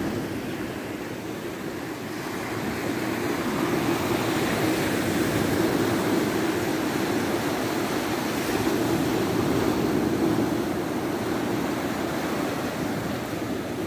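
Small sea waves breaking and washing up a sandy beach: a steady wash of surf that swells a little about two seconds in.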